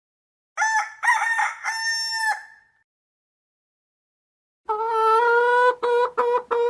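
Rooster crowing, a drawn-out call of a few linked segments lasting about two seconds. After a pause, a long steady note starts near the end and breaks into short repeated notes at the same pitch, about three a second.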